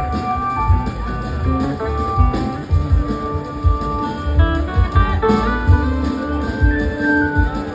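Live band music: an electric slide guitar plays a lead solo of held and gliding notes over a steady low drum and bass pulse.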